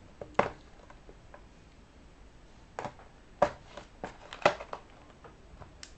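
Fingers picking and scratching at a sealed cardboard trading-card box, trying to open it: a handful of short, sharp scrapes and taps with pauses between.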